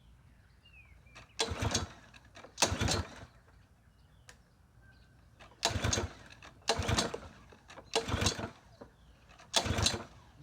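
Lawn mower engine turned over six times in short, separate pull-start attempts, each about half a second long. It does not catch and run, which the owner takes to mean the valves probably need adjusting again.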